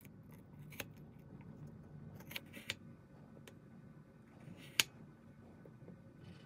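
Miniature kitchen knife slicing napa cabbage and carrot on a tiny wooden cutting board: several short sharp clicks and crunches as the blade cuts through and taps the board, the loudest nearly five seconds in, over a faint low hum.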